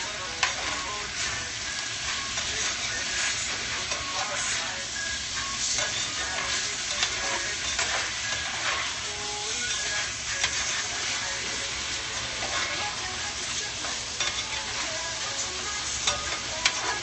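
Steak, shrimp and onions sizzling in a frying pan, with a utensil scraping and clicking against the pan as the food is stirred.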